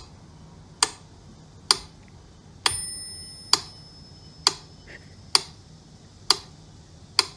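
Mechanical pyramid metronome ticking steadily, a little under one tick a second. Its bell rings on one beat about three seconds in.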